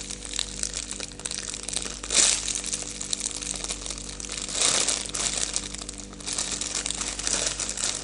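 Plastic crinkling and rustling as a squishy toy is handled and turned over, with three louder crinkles about two, four and a half, and seven seconds in.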